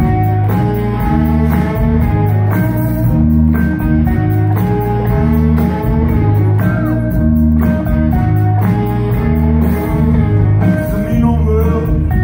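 Live blues-rock band playing an instrumental passage with a repeating bass line under sustained notes from keyboard and horns.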